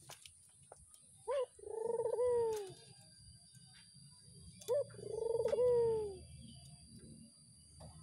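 Ringneck dove (burung puter) cooing twice, about three and a half seconds apart. Each call is a short rising note followed by a longer rolling, purring coo that drops in pitch at the end.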